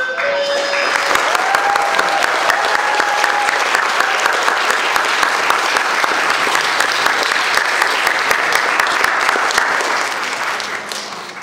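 Audience applauding after the end of the music. The last held note of the accompanying music dies away as the clapping starts, and the clapping fades out near the end.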